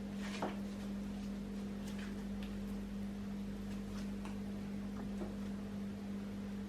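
Slime being worked by hand, giving a few scattered small clicks and pops, the sharpest about half a second in, over a steady electrical hum.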